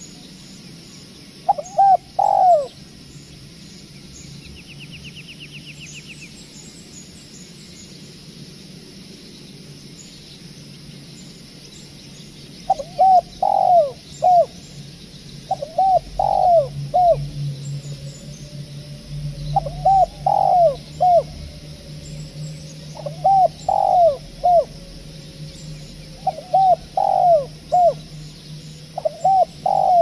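Spotted dove cooing: one short phrase about two seconds in, then from about halfway a run of six short three-note coo phrases, one every three to four seconds. Faint small-bird chirps sound high above, and a brief fast trill comes about five seconds in.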